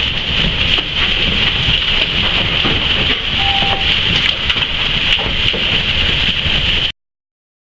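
Hail and heavy rain pelting down: a dense, steady hiss peppered with many small, sharp impacts. The sound cuts off suddenly about seven seconds in.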